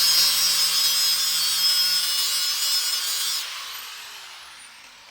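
Angle grinder with a wire wheel scrubbing old JB Weld epoxy off a steel motorcycle fuel tank, a steady harsh scraping. About three and a half seconds in, the grinder is released and its falling whine fades as it spins down.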